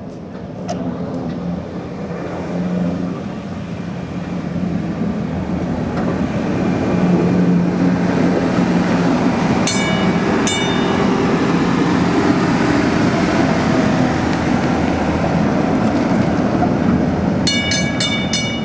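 PCC streetcar running past on its rails: the hum of its motors and wheels grows louder as it comes close and goes by. Two ringing clangs from its gong come as it passes, then a quick run of clangs near the end.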